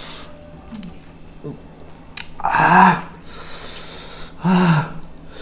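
A person gasping and hissing air in through the mouth, as from the burn of hot green chilli: two short voiced cries of "ah" about two seconds apart, with a hissing breath between them.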